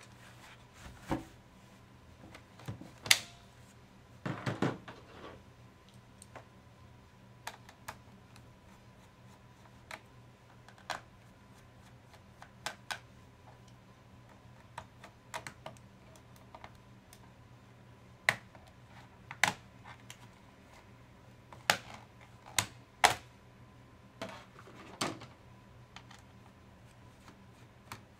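Scattered sharp clicks, taps and knocks of hands and a screwdriver on a laptop's plastic case as it is turned over and the screws and access panel on its underside are taken off, with a quick run of clicks about four seconds in. A faint steady tone hums underneath.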